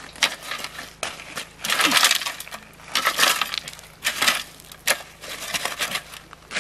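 Pebbles and gravel crunching and clinking in a series of short uneven bursts as a person shuffles about and shifts a small petrol water pump on stony ground; the pump's engine is not running.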